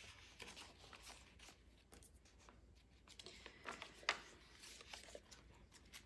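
Faint rustling and a few soft clicks of heavy matte photo-paper pages and tags being handled and turned in a handmade journal, with one sharper click a little after four seconds.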